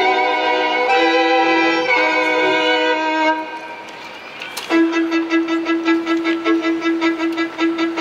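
String ensemble of violins, cello and double bass playing: held chords for about three seconds, a brief quiet dip, then the music resumes with quick repeated bowed strokes over a held note.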